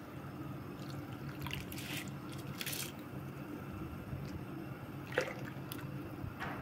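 Soaked rice and its water tipped from a bowl into a pot of boiling water: a run of splashes and drips, with one sharper splash about five seconds in.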